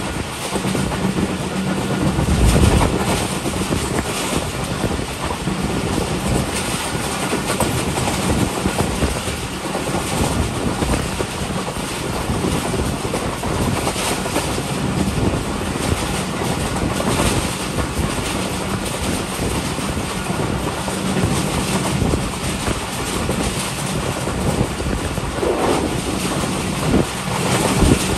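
Passenger train running at speed: a steady rumble and rattle of the coach wheels on the rails, with irregular knocks and a faint low hum that comes and goes.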